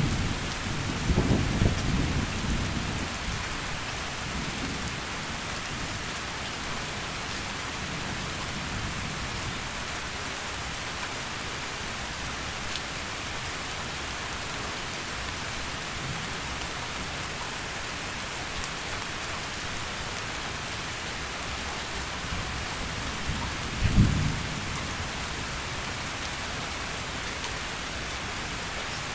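Heavy rain falling steadily as an even hiss. Thunder rumbles in the first few seconds, and a single brief, loud thunder clap comes near the end.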